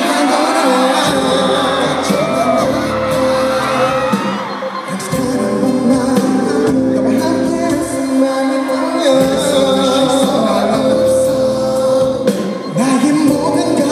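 Live pop ballad: a male singer's vocal runs over sustained keyboard and band accompaniment, heard through a concert sound system.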